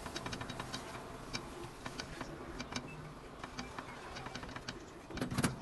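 Ingredients frying in a hot pan, with light, irregular crackles and ticks. A louder, brief noise comes near the end.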